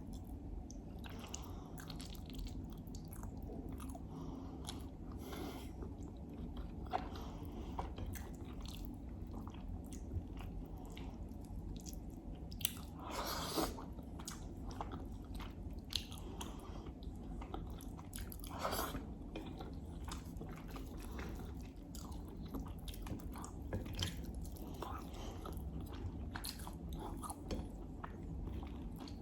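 Close-miked chewing and biting of ghormeh sabzi stew, rice and lamb: a steady run of small wet mouth clicks, with two longer, louder bursts, about halfway through and a few seconds later.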